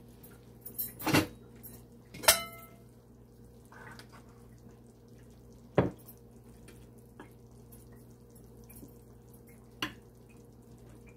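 Stainless-steel cooking pot and its lid clanking while rice is served onto a plate: four sharp knocks, the loudest about two seconds in ringing briefly, with softer ticks between, over a steady low hum.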